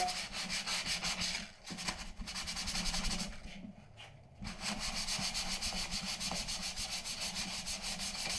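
Sandpaper rubbed by hand over dried joint compound on a sheetrock patch, in quick back-and-forth strokes, with a short pause about three and a half seconds in.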